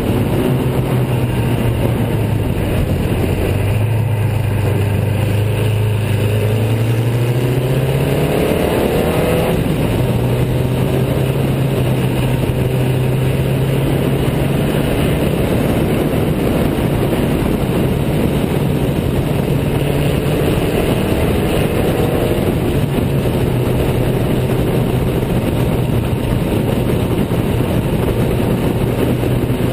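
Riley 12/4 Special's four-cylinder engine at racing speed. Its note climbs as the car accelerates for a few seconds, drops at a gear change about ten seconds in, then holds steady.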